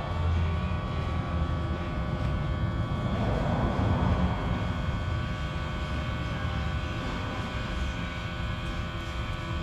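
ANCEL S1000 smoke machine running steadily as it pumps smoke into the intake system for a leak test: a constant low hum with a faint steady whine, with some hiss rising and falling around three to four seconds in.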